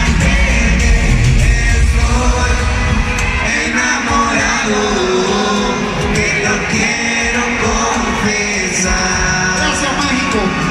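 Live concert music with a male singer on vocals over an amplified band in a large arena. The heavy bass beat drops out about three and a half seconds in, and the song carries on lighter.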